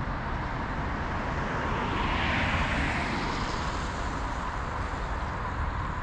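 A car driving on a wet road: a steady low rumble with tyre hiss, and the hiss swells and fades about two to three seconds in.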